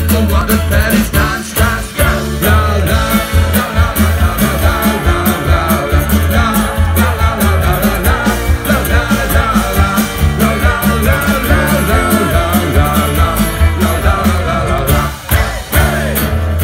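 Live folk-rock band playing loud through a PA, with fiddle, acoustic guitars, banjo and drums over a steady driving beat.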